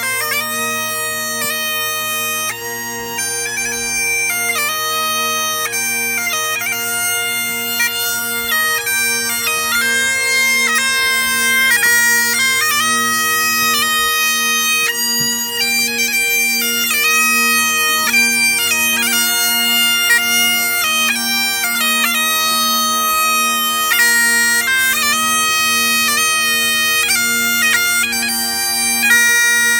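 Bagpipes playing a tune: steady drones held underneath while the chanter melody steps between held notes above them.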